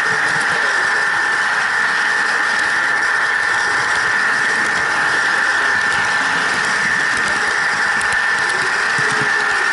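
Model train running steadily along the layout track: a constant high-pitched motor whine over an even rushing noise, with a few faint clicks.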